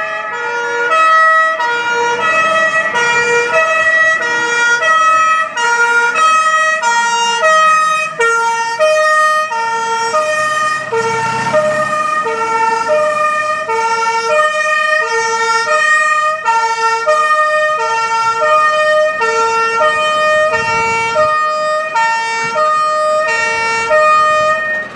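Compressed-air two-tone Martinshorn on a German fire engine, alternating steadily between a low and a high note, with the truck's engine running beneath it. The horn cuts off suddenly near the end.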